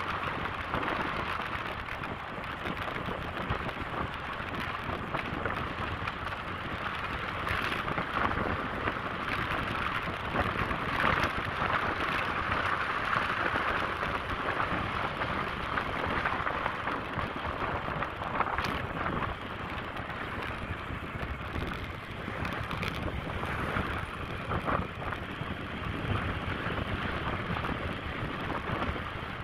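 Steady rushing noise on a moving motorcycle, with no clear engine note, and a few brief louder spikes along the way.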